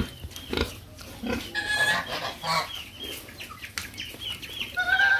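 Birds calling: many short, high peeps repeated in quick runs, with a few louder, longer calls about two seconds in and near the end. Several short sharp knocks are mixed in, the loudest at the very start.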